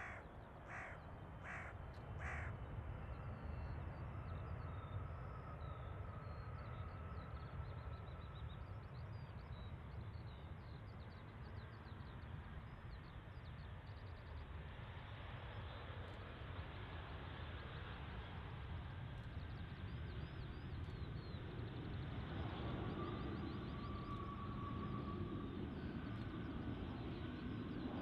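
Boeing 777-300ER's GE90 jet engines rumbling steadily as the airliner rolls out along the runway after touchdown, the noise swelling after a few seconds with a faint whine coming and going. A bird calls three times near the start.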